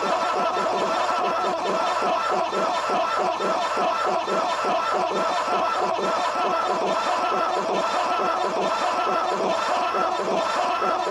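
Creepy sound-design ambience made of many overlapping voice-like snickers and chuckles, layered into a dense, unbroken texture at a steady level.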